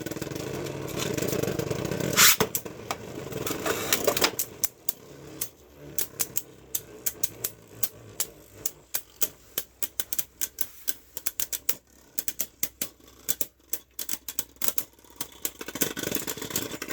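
Jet Wyvern and Death Diabolos Beyblade Burst tops spinning and colliding in a plastic stadium. A steady grinding whirr carries the first four seconds, with a sharp clash about two seconds in. Then come rapid clicks and rattles that grow sparser as the tops slow down.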